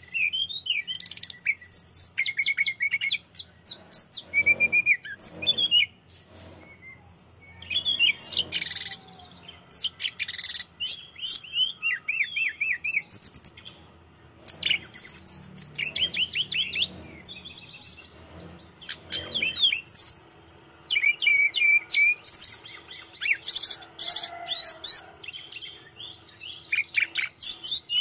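Caged male hill blue flycatcher (tledekan gunung) singing in full voice: quick, varied phrases of high chirps and trills, broken by short pauses.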